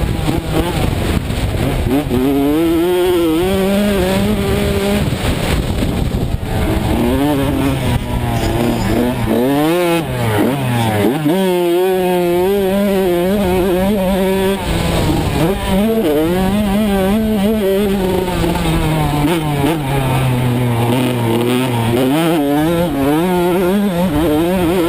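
85cc-class motocross bike engine being ridden hard, its pitch climbing and dropping again and again as the throttle opens and closes through the gears, with wind rushing over the microphone.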